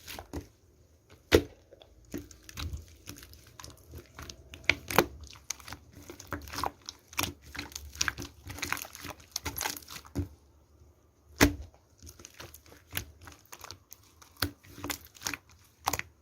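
Irregular crinkling, tearing and tapping of paper or plastic being handled, with sharper taps about a second and a half in and again near eleven and a half seconds.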